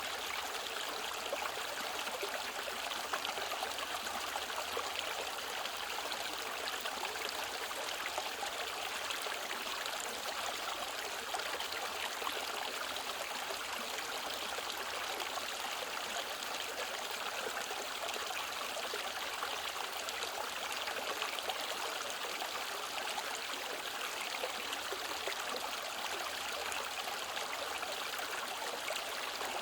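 Mountain stream flowing steadily, an even rush of water with no change in level.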